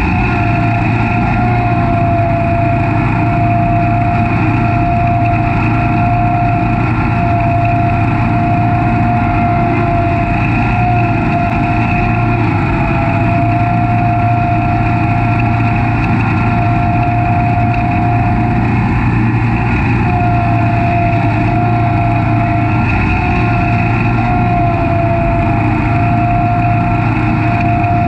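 Snapper Pro SS100 36-inch stand-on mower running steadily while mowing: a constant engine drone with a steady high whine over it.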